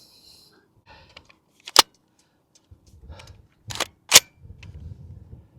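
Two sharp shots from a PSA JAKL long-stroke gas-piston rifle, about two and a half seconds apart, the second the loudest, with a smaller sharp crack just before it and faint handling rustle in between.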